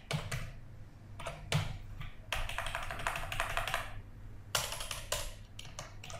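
Computer keyboard typing: quick runs of key clicks with short pauses between, as a word is typed and text is deleted and retyped. A low steady hum lies underneath.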